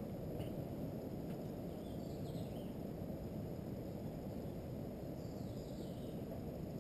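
Steady low rumble of outdoor background noise, with faint high chirps from small birds twice, about two seconds in and again near the end.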